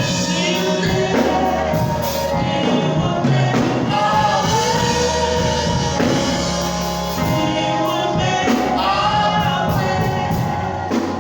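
Gospel worship song: a choir of voices singing over instrumental accompaniment with held low notes.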